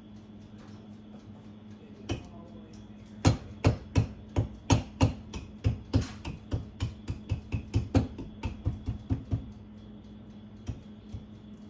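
A hammer-like kitchen tool pounding to crush chocolate: a single knock, then a quick run of about twenty sharp blows, roughly three a second, from about three seconds in to past nine seconds, with one last tap near the end.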